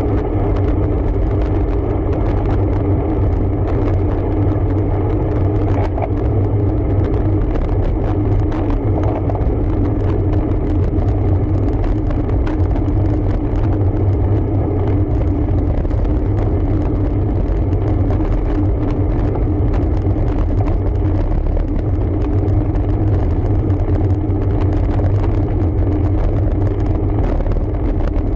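Steady low rumble with a constant hum, with no break or change: wind and road noise on the microphone of a moving road bike.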